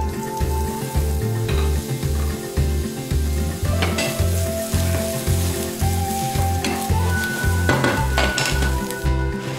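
Julienned ginger sizzling as it fries in hot oil in a nonstick pan, stirred with a wooden spatula, with a few short scraping strokes about four seconds in and near the end. Background music with a steady beat plays underneath.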